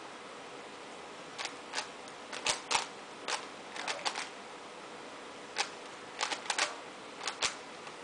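Rubik's Cube layers turned fast by hand during a timed speedsolve: short runs of clacking turns, starting about a second and a half in, with brief pauses between runs and a longer pause in the middle.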